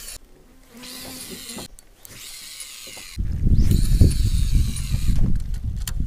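Fishing reel whirring in three runs of about a second each as line spools through it. A heavy low rumble of wind on the microphone joins about three seconds in and becomes the loudest sound.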